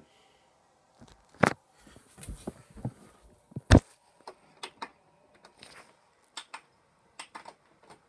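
Scattered clicks and knocks of hands handling an Emerson VCR and pressing its front-panel buttons, with two sharper knocks in the first half.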